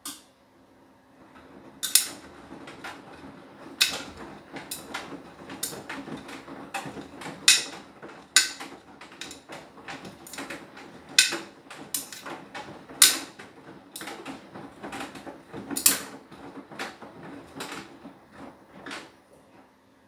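Beko WTK104121W front-loading washing machine with its drum turning the wet load in a wash or rinse tumble: a churning swish with irregular sharp slaps and knocks as the laundry drops, starting about a second in and stopping near the end.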